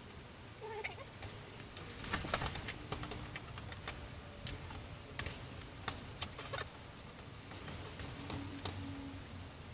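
Scattered light clicks and rustling from hands working the bottom rail and string anchor of a pleated window shade, adjusting the string tension. The clicks are irregular and bunch together in the middle.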